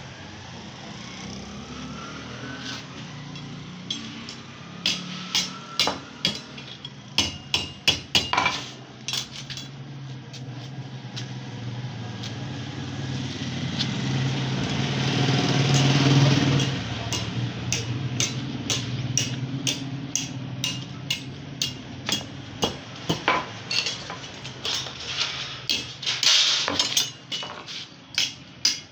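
Hammer blows on steel, struck in irregular runs of sharp strikes, over a steady low hum that swells to its loudest about halfway through and then eases.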